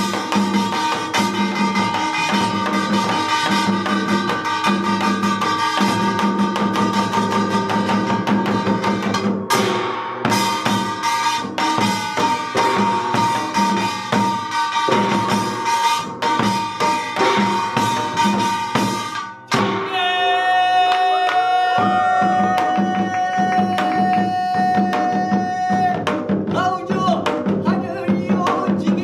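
Korean samul nori percussion, with janggu hourglass drum, buk barrel drum and gongs, playing a fast, dense rhythm. About two-thirds of the way in the drumming drops back and a voice comes in with one long held note, then bending notes, as the sung binari blessing chant begins over the percussion.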